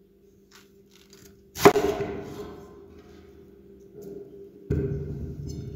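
Knocks on a wooden cutting board as food and a utensil are set down and handled: one sharp knock about a second and a half in, then a duller thud near the end that fades slowly. A faint steady hum sits underneath.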